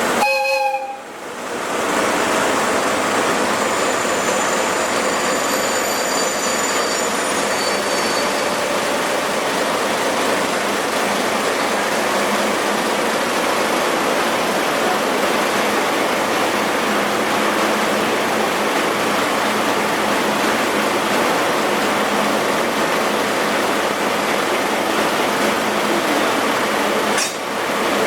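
Steady rushing noise of a locomotive-hauled passenger coach running along the line, heard from inside the coach. There are faint high squeals a few seconds in, and the sound briefly drops away about a second in and again near the end.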